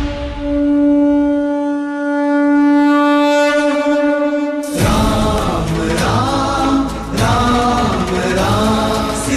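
A conch shell blown in one long, steady note lasting about five seconds, then the song's full music and singing come back in.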